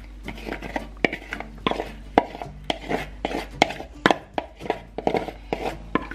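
A spatula scraping thick yogurt mixture out of a mixing bowl, knocking against the bowl in a run of irregular sharp taps, a few a second.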